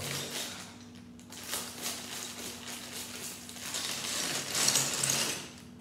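Plastic Lego parts bag crinkling as it is handled and pulled open, the crackling loudest for a second or so about four seconds in, with loose bricks shifting inside.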